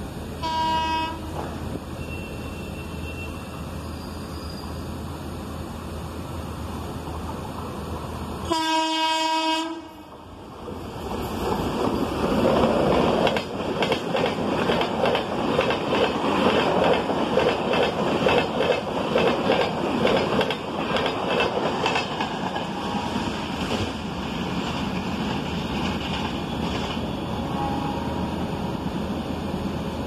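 SBC–MAS Double Decker Express passing at speed: a short horn blast, then a longer, louder horn blast about nine seconds in. The double-decker coaches then rush past with a rapid rhythmic clickety-clack of wheels over the rail joints, which eases toward the end as the train goes away.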